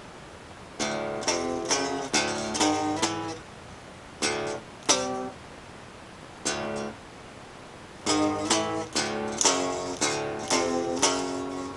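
Electric guitar in drop D tuning, played without distortion: a riff of low open-string notes alternating with fretted notes on the three lowest strings. It comes as two quick runs of notes with a few single notes between them.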